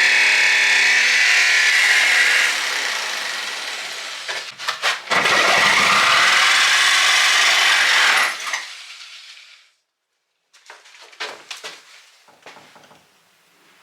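Power tool cutting or boring into the entry door, running in two long stretches. It stops about eight seconds in and is followed by a few light knocks and handling sounds.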